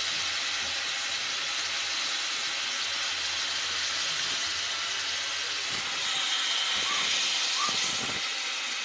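Chicken pieces frying in hot oil in a karahi: a steady sizzle that grows a little louder a few seconds before the end.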